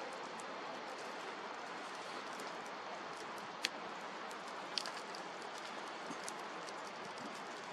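Wood campfire burning with a steady hiss and many small crackles, and two louder sharp pops from the burning wood near the middle.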